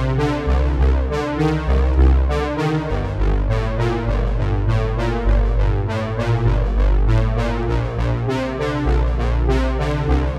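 Background music: synthesizer and electric-piano instrumental with a steady beat and deep bass.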